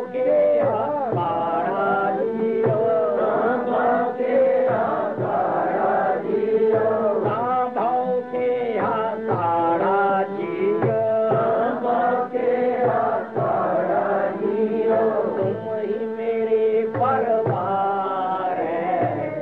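A solo voice sings a Sikh Gurbani hymn (shabad kirtan) in a devotional chant style, with long melismatic held notes. Underneath runs a steady sustained drone with regular low drum strokes.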